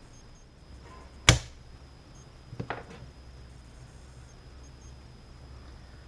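A single sharp click about a second in, then a softer knock a second or so later: the output transformer of a vintage tube portable radio being handled and worked free of its chassis as its mounting rivet is removed.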